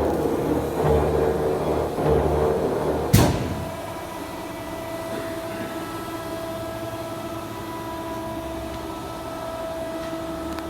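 A 1990 Amada TPL-150S 150-ton link press running on test, its slide stroking in a heavy, even rhythm of roughly one stroke a second. A little over three seconds in, the strokes stop with one sharp clunk, and a steady, quieter motor hum carries on.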